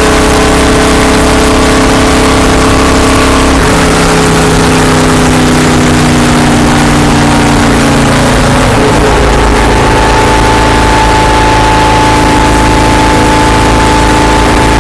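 Stock car's V8 racing engine running hard at speed, loud inside the cabin. The engine note shifts about four seconds in and again about nine seconds in.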